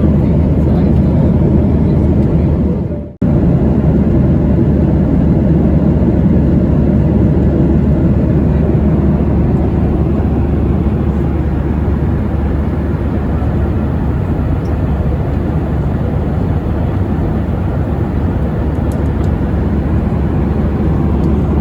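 Steady cabin drone of a Boeing 737-800 in cruise: engine and airflow noise heard from inside the economy cabin. About three seconds in, it fades briefly and then cuts back in abruptly.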